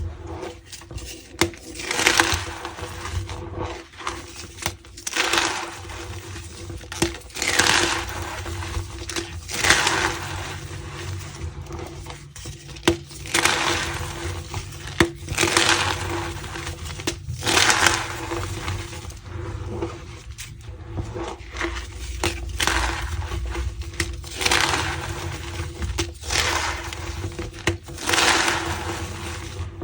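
Reformed gym chalk blocks crushed and crumbled by hand, giving squeaky, crunching bursts at an irregular pace of about one every one to two seconds.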